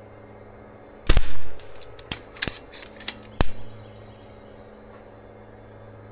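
Karma Airguns SLS .25 calibre pre-charged pneumatic air rifle firing in semi-automatic mode: a sharp shot about a second in, then a few lighter clicks and another sharp crack a couple of seconds later.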